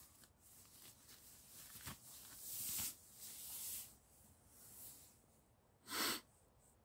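Synthetic sleeping bag fabric rustling as a person pulls the bag up over the head and shifts inside it, then one short, loud burst of noise about six seconds in.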